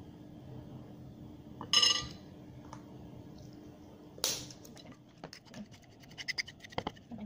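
A metal spoon clinking once with a ringing tone about two seconds in, then a single sharp knock a little after four seconds. From about five seconds the spoon scrapes and taps in a ceramic bowl, stirring dry curry powder and turmeric together.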